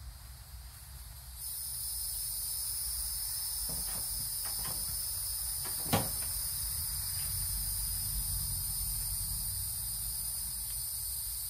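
Steady high-pitched insect chorus that comes in about a second and a half in, with a few short knocks from handling the mower, the loudest about six seconds in.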